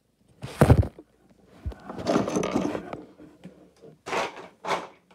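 Bumps and rubbing handling noises as a cat moves over the Lego set and brushes against the camera: a loud knock about half a second in, a stretch of scraping and rubbing, then two shorter knocks near the end.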